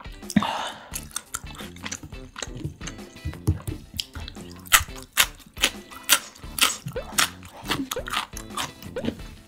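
Close-miked eating of jjambbong, spicy noodle soup: a quick run of wet chewing clicks and smacks, with a short slurp about half a second in, over background music with low notes.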